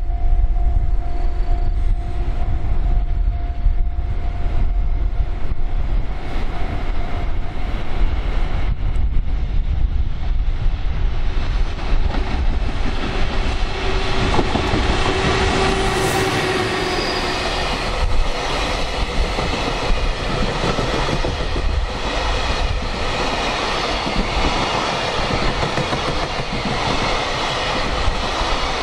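Electric freight train passing through the station: a low rumble first, then from about a third of the way in the wagons go by with their wheels clacking over the rail joints in a steady rhythm, about one clack a second. Strong wind buffets the microphone.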